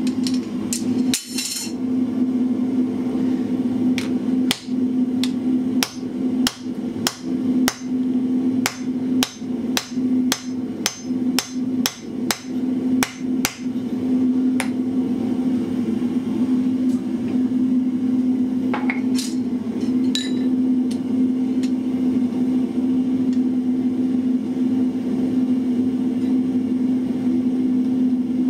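Hammer blows driving a hot punch into a red-hot bar on an anvil, about two sharp strikes a second for some fourteen seconds, then stopping, with a couple of lighter clinks later. This is hot punching the first side of the bottle opener's hole, leaving a dark spot as a guide for punching from the reverse. A steady low drone runs underneath.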